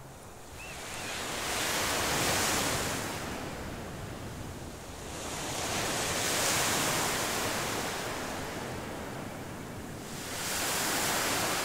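Sea waves breaking and washing up a gravel beach, three surges about four seconds apart, each rising to a rush and then fading.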